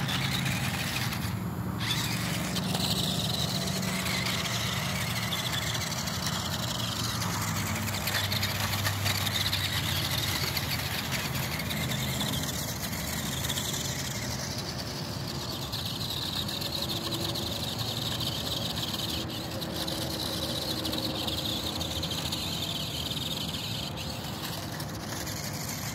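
Small electric motor and gears of a toy RC rock-crawler buggy running steadily.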